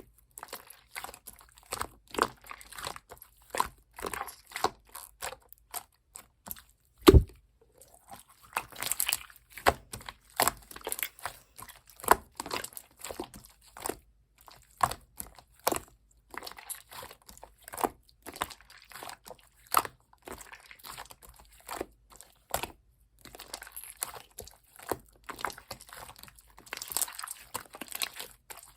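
Slime being squished and poked by hand, giving a run of irregular crackly clicks and small pops, with one louder thump about seven seconds in.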